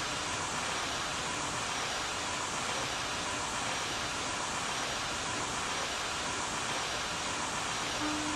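Steam locomotive letting off steam: a steady, even hiss with no exhaust beat. A low steady tone joins in near the end.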